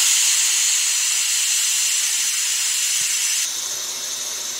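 Pressure cooker whistle venting steam in a loud, steady hiss, easing slightly about three and a half seconds in: the sign that the cooker has reached pressure, one of the whistles counted to time the cooking.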